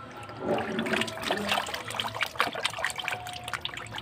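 Water splashing and sloshing in a plastic tub as a hand scrubs a toy, a quick irregular run of small splashes and drips.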